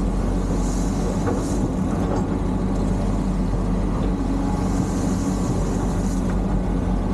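A vehicle's engine running steadily, giving a continuous low drone with a few faint clicks.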